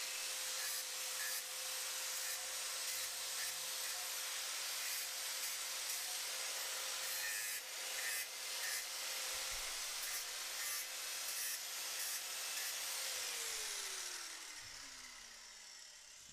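Electric power tool grinding metal, most likely the end of a 3/8-inch stainless steel axle rod, with a steady motor whine under a rasping grind. Near the end it is switched off and the motor winds down in falling pitch.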